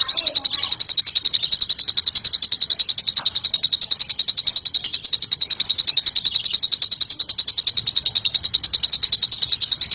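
Green leafbird (cucak ijo) singing a fast, even, rattling trill in the style of a cililin's song, held without a break, with a couple of faint higher chirps over it.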